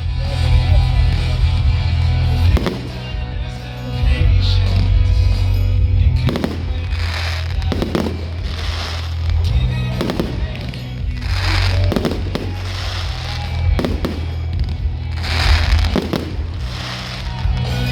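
Fireworks shells bursting in a string of loud bangs, most of them from about six seconds in at roughly one a second, each trailing off in a rumbling echo, over music with a steady heavy bass.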